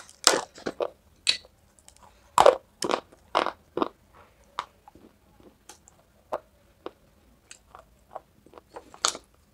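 Bites and chewing of Hyderabadi white khadi, an edible chalk. A run of sharp, dry crunches comes in the first four seconds, then sparser, softer chewing clicks, with one louder crunch near the end.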